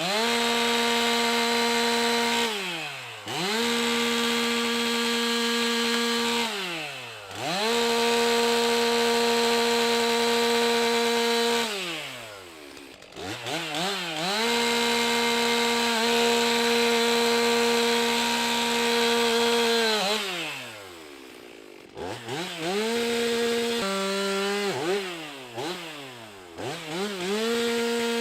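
Stihl MS 362 C-M two-stroke chainsaw making a series of cuts: it is revved up to full throttle and held steady for a few seconds, then drops back toward idle, seven times over, the longest cut lasting about seven seconds in the middle. Near the end the runs are shorter, one of them at a slightly lower pitch.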